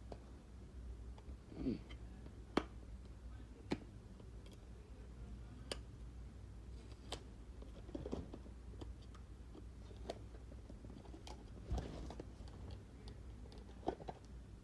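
Faint irregular clicks and small crinkles of packaging being worked open by hand, each click sharp and separate, over a low steady hum.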